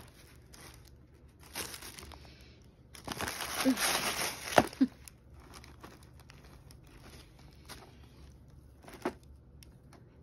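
Tissue paper and a plastic packet crinkling and rustling as items are handled and lifted out of a box. It comes in bursts, loudest between about three and five seconds in, with a short sharp crackle near nine seconds.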